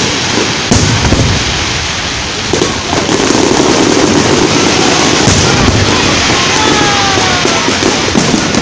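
Fireworks going off: a dense, continuous crackle with a few sharper bangs, and a brief falling whistle about two thirds of the way through.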